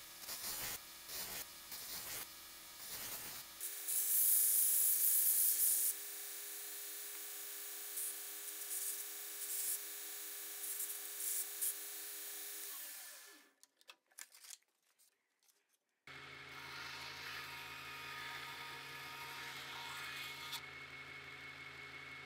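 Belt grinder running with a steel hook-knife blank, cut from an old planer blade, pressed to the belt: short repeated grinding strokes, then a loud hiss of steel on the abrasive belt for about two seconds, then a steady motor tone with intermittent contact. About two-thirds of the way through the sound drops away, and a lower steady machine hum starts a few seconds later.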